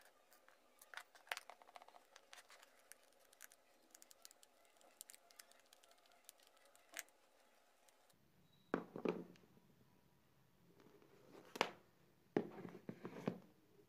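Faint clicks and scrapes of a plastic AC adapter case being handled, with a screwdriver tip worked against the case. A few louder clicks and knocks come in the second half.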